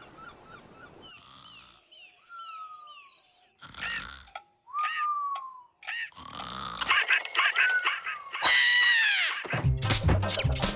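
Animated-cartoon sound effects: a few chirps, sharp clicks and two long falling whistle-like glides, then a busier burst of falling glides. Music with a steady beat comes in near the end.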